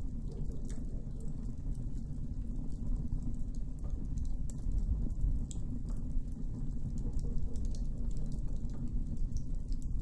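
Campfire crackling: scattered sharp pops and snaps over a steady low rumble.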